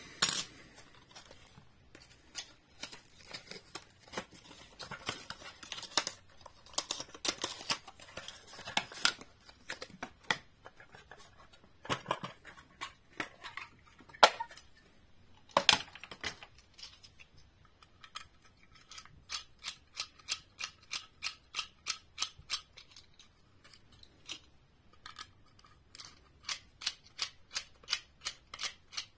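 Plastic and cardboard packaging of a diecast model car being handled, with scattered clicks and taps as the plastic display case comes out of its box. Then a screwdriver turns a screw out of the case's black plastic base, with quick, even clicking about three times a second over the last ten seconds.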